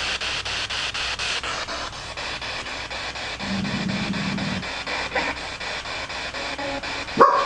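Spirit box sweeping through radio stations: a hiss of static chopped by about five clicks a second, with a brief low hum of a station fragment around the middle and a short loud burst near the end.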